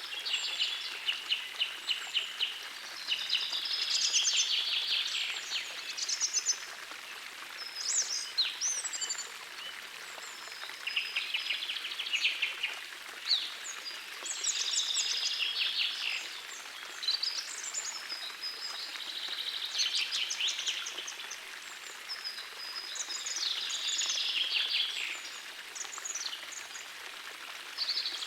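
Songbirds singing, a phrase of rapid trills and chirps every two to three seconds, over the faint steady rush of a gentle forest stream.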